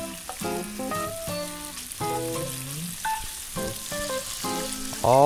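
Sliced pork belly sizzling in a grill pan, under background music of short notes at changing pitches. A loud tone that glides up and then down starts right at the end.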